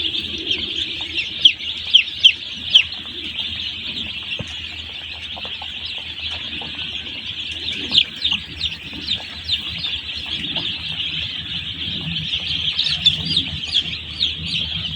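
A crowd of day-old chicks peeping without pause, a dense chorus of high, short, downward-falling cheeps, with a few louder single peeps standing out now and then.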